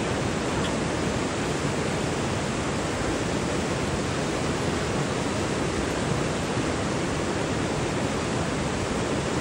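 Fast-flowing river water rushing over a shallow stony bed: a steady, even rush with no change in level.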